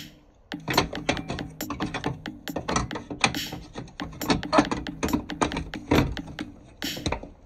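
Rapid, irregular clicks and knocks from a hand working a metal electrical disconnect box and closing its hinged cover, over background music.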